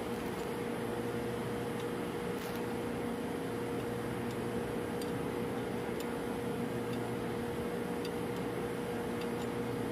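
Steady machinery hum holding one constant mid-pitched tone, with a few faint, irregular metallic ticks from a spanner working the flange bolts of a filter-drier shell.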